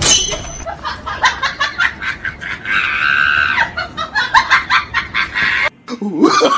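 A woman's rapid, high-pitched giggling laughter, with a long squeal about three seconds in.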